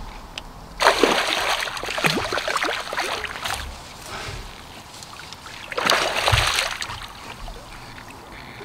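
Water splashing and slapping around a landing net in a river, in two loud spells: one starting about a second in and lasting a couple of seconds, another shorter one about six seconds in.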